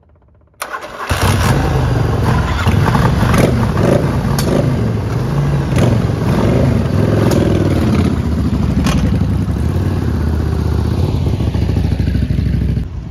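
Two Yamaha V-twin cruiser motorcycles, a 1986 Virago and a 1998 V-Star, start up about a second in, then run loud with some revving as they pull away. The sound cuts off suddenly just before the end.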